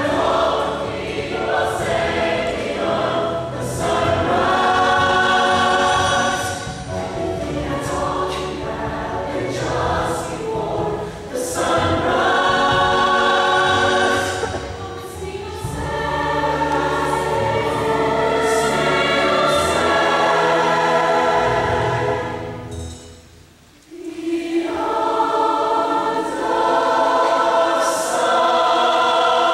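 Mixed-voice show choir singing, men and women together, with a short break about three-quarters of the way through before the voices come back in.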